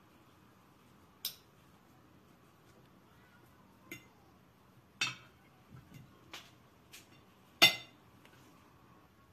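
Metal fork and spoon clinking against a ceramic plate and a glass baking dish while crushing boiled potatoes by hand: about six scattered clinks, the loudest near the end.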